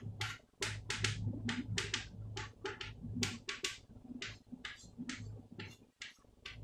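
Chalk on a blackboard: a quick run of short scratching strokes and taps, about three a second, as lines and letters are drawn.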